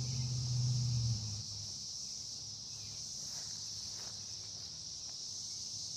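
Steady high-pitched chirring of insects in the background. A low hum stops about a second in, and a few faint clicks come in the middle.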